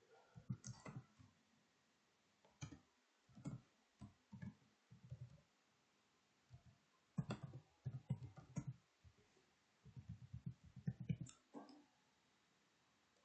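Computer keyboard keys clicking quietly in several short runs of typing, with pauses between the runs.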